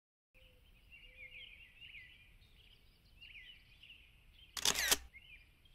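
Small birds chirping, a steady stream of many short high chirps and twitters, with a single loud crunch, like a step, about three-quarters of the way through.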